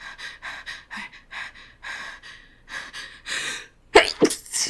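A woman's run of short, catching breaths as a sneeze builds, then about four seconds in a sudden loud sneeze in two bursts that she failed to hold back.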